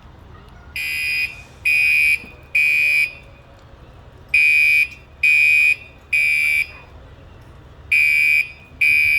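Fire alarm sounding in the three-beep evacuation pattern: three loud, high-pitched beeps about a second apart, a pause, then three more, repeating.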